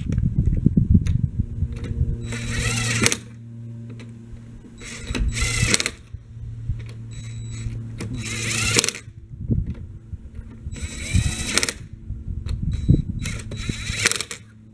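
Cordless impact wrench running lug nuts onto a rear wheel's studs in about five short bursts, each a second or less, its motor whine rising and falling, with clatter between the bursts.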